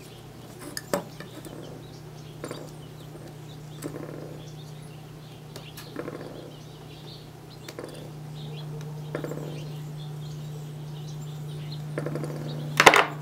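Scattered small clicks and rustles of hands working on an electrical cord and tools, over a steady low hum that grows a little louder about two-thirds through. A louder, sharp clatter comes near the end.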